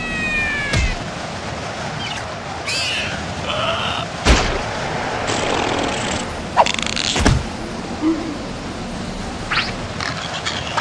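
Cartoon sound effects: a short falling whistle at the start, then sharp whacks and thuds about a second in, around four seconds and around seven seconds, with brief squeaky character vocal noises in between, over a steady background hiss.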